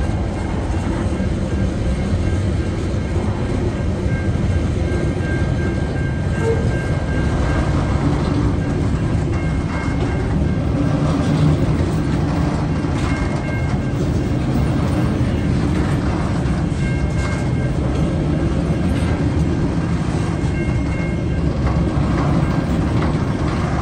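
Container wagons of a long freight train rolling slowly past over a level crossing: a steady low rumble of wheels on rail, with a few brief faint high tones now and then.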